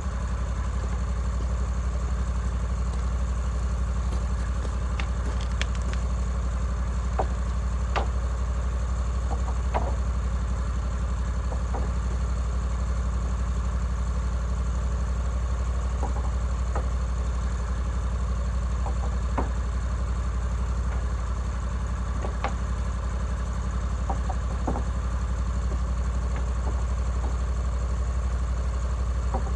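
Woodland Mills HM136MAX sawmill's gas engine running at a steady speed, with a few scattered light clicks.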